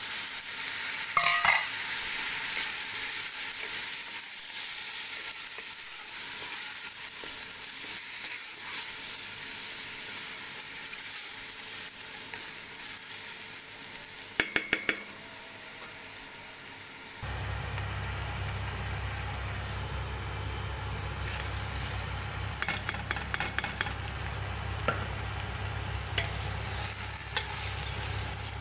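Shrimp, tomato and vegetables sizzling in a stainless steel pot while being stirred, with a wooden spoon knocking against the pot in short runs of clicks. About two-thirds of the way through the sound changes to a new take, where the sizzling and stirring continue over a steady low hum.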